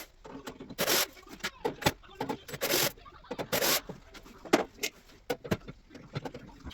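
A diesel heater being handled and taken apart by hand: a run of irregular clicks and knocks with brief scrapes and rubs of its parts.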